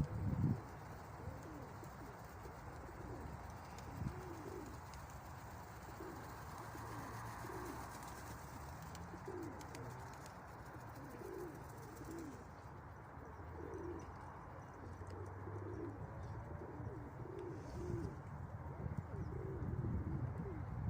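Pigeons cooing, many short rolling coos one after another, over a low rumble of strong wind.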